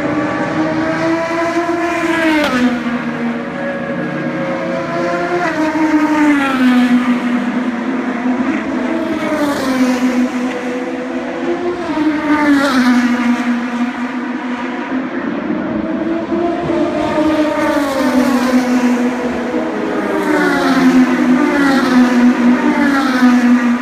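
Open-wheel race cars running past on a street circuit, one after another, their high-revving engine notes dropping in steps and climbing again with gear changes.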